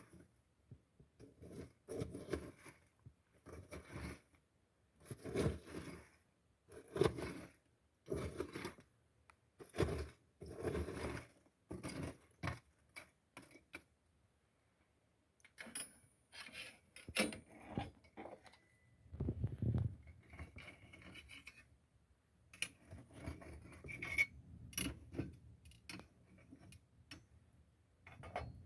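Repeated scraping and clinking strokes of food preparation by hand, about one every second and a half, pausing about halfway before more irregular scrapes and knocks.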